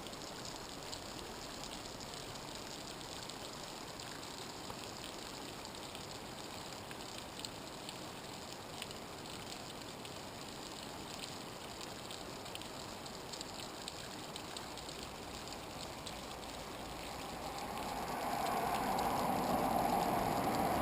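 Water from a small roadside waterfall running down rocks: a steady splashing with scattered drips. In the last few seconds a hum grows steadily louder over it.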